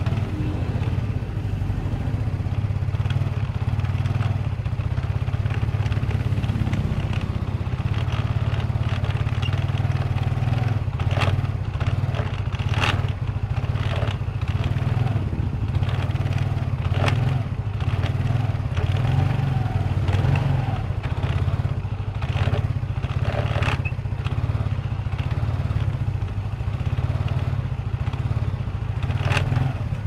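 Yamaha Mio scooter's single-cylinder four-stroke engine idling steadily, with a light click now and then.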